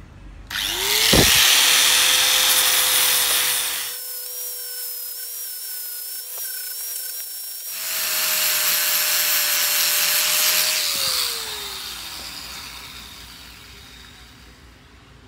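Angle grinder with a sanding disc running against a wooden knife handle: the motor spins up to a steady whine under a loud hiss of sanding. About eleven seconds in it is switched off and winds down, its pitch falling as the sound fades.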